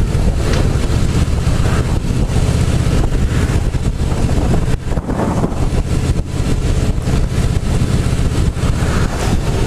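Harley-Davidson Softail Slim's V-twin engine running steadily under way, heard through a helmet-mounted mic with wind rushing over it.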